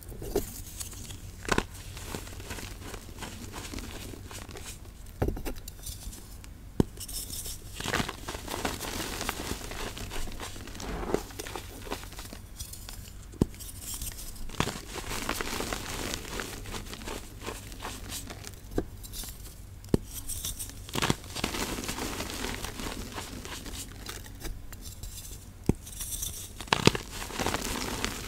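Hands crushing blocks of re-formed gray gym chalk, mixed with charcoal, into loose powder: dry crunching and crumbling throughout, with sharp cracks here and there as chunks snap apart.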